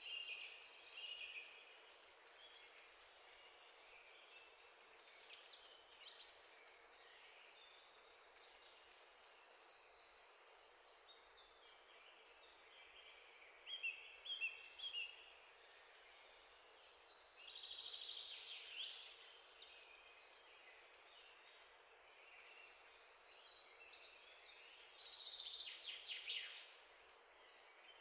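Near silence: faint high chirps and short falling twitters, like birdsong, over a low hiss, rising a little about halfway through and again near the end.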